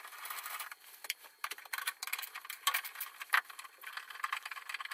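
Socket ratchet clicking in quick runs as a bolt is turned in a car's engine bay, with scattered clinks and a few louder knocks of metal tools.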